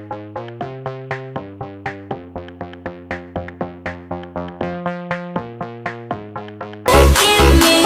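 Background electronic music: a line of short, quick notes, about four a second, over held low chords, until a loud dance beat with a heavy kick drum comes in suddenly near the end.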